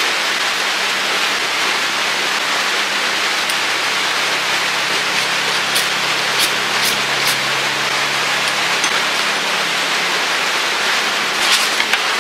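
Steady rain on the roof. In the middle, a handful of short, sharp scrapes from a ferro rod being struck over a tin of charred punk wood, throwing sparks onto the char.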